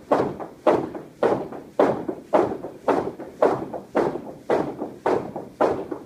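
Heavy battle ropes slapping down on a rubber gym floor in a steady rhythm, about two slaps a second, each one hitting suddenly and dying away quickly.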